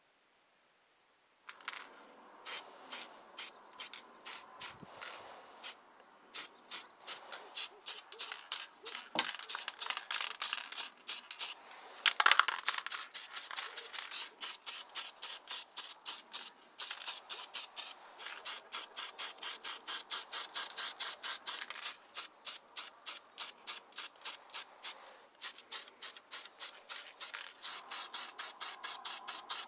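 Quick back-and-forth abrasive rubbing strokes on a small model car body, about four a second, like sanding or scrubbing off old paint. They start about a second and a half in, with one louder scrape about twelve seconds in.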